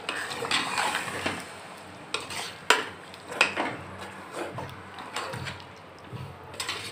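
Metal ladle stirring a chicken and turnip curry in a metal cooking pot, scraping and knocking against the pot's sides at irregular intervals.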